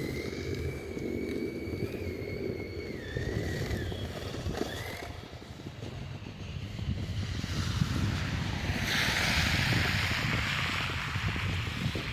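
City street traffic with wind on the microphone. A high wavering squeal runs through the first three and a half seconds, and a loud hiss rises about eight seconds in and lasts some three seconds.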